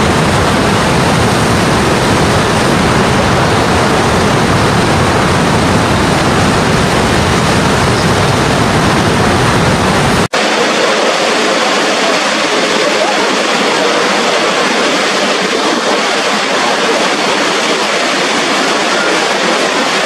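Niagara Falls: a loud, steady rush of water pouring over the brink. About halfway through the sound breaks off for an instant and resumes thinner, without its deep low rumble.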